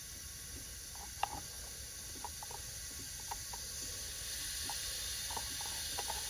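Compressed air hissing steadily from a leak-down test on a cylinder of a Porsche GT3 race engine, air heard leaking past the piston into the crankcase as blow-by. The hiss grows louder from about halfway through. A sharp light click comes just over a second in, with a few fainter ones after.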